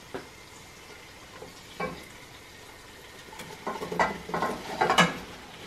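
Halved Brussels sprouts tipped off a plate into a stainless steel pot: a couple of light knocks, then a quick run of clattering thuds about three and a half to five seconds in as they tumble into the pot.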